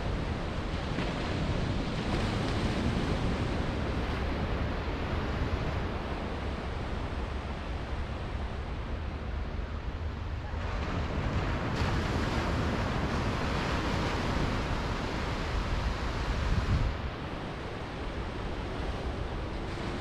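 Small waves on a calm sea breaking and washing up a sandy beach, a steady hiss of surf over a low rumble of wind on the microphone. The wash grows brighter and louder about halfway through and drops off sharply near the end.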